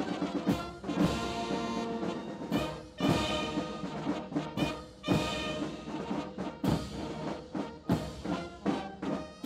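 Military marching band playing a quick march: held brass chords from trumpets, trombones and sousaphones over snare drums and bass drum, with crash cymbals struck on the beat.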